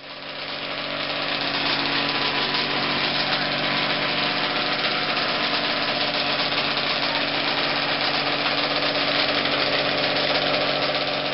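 Vintage racing snowmobile's two-stroke engine running steadily at a fast idle, building up over the first couple of seconds and then holding an even note.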